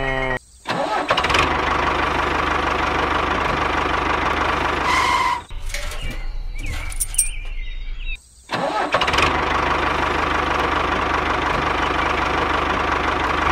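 Tractor engine running steadily, cutting out briefly about half a second in and again around eight seconds in, with a short beep-like tone about five seconds in.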